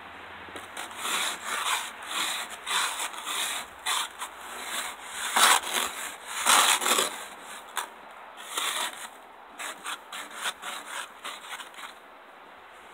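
Snow brush bristles sweeping snow off a pickup truck in a long run of short, irregular strokes, loudest around the middle and thinning out near the end.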